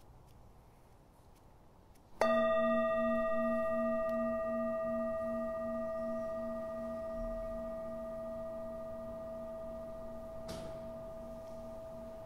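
A singing bowl struck once about two seconds in, then ringing on with a long, slowly fading tone that wavers in its lowest note. Before the strike there is only faint room tone.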